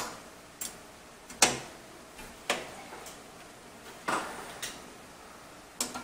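Handling noise of a screwdriver against a steel PC case: about six separate sharp clicks and light knocks at uneven intervals, the loudest about a second and a half in.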